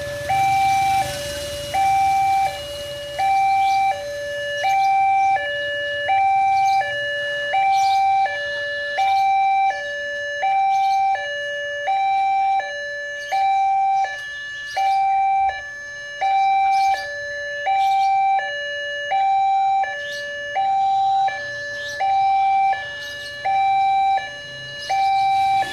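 Railway level-crossing warning alarm: an electronic two-tone signal alternating steadily between a higher and a lower tone, about one high-low cycle every second and a half. It is the warning that a train is approaching the crossing.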